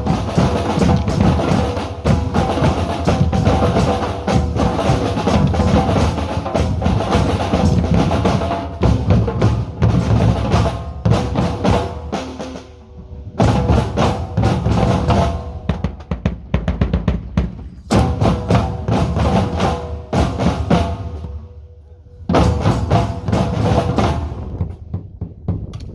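Drumming with bass and snare drums struck in a fast, dense rhythm. It drops away briefly about halfway through and again near the end, then comes back in each time.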